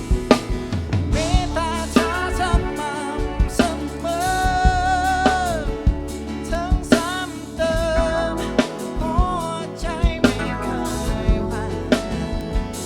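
A band playing a song: drum kit with regular drum hits under a sung melody line that bends and wavers.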